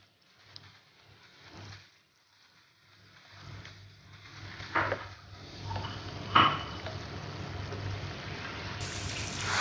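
Fish fillets sizzling in butter in a frying pan, quiet at first and growing louder after about three seconds, with a spatula clinking against the pan twice in the middle.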